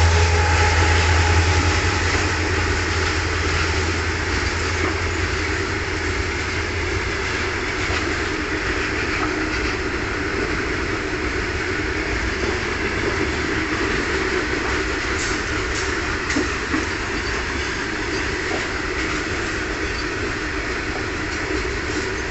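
A train running past on the tracks with a steady rumble and rush of wheels. A heavy low hum fades out after about eight seconds.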